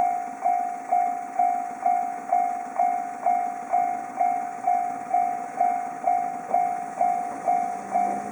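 Japanese railroad level-crossing warning bell ringing, a single ding repeating about twice a second, each strike fading before the next.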